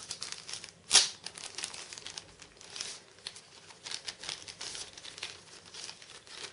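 Thin clear plastic packaging bag crinkling and rustling as it is handled and a battery charger case is pulled out of it, with one sharper crackle about a second in.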